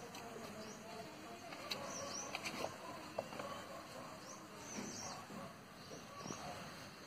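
Birds chirping in the background, a few short high chirps scattered through, over a faint murmur of distant voices.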